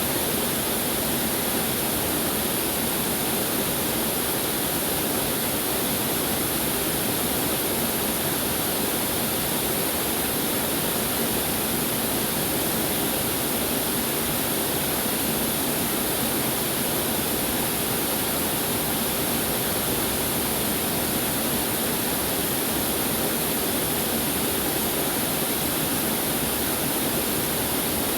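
Waterfall pouring steadily: an even rushing of falling water with no breaks or changes.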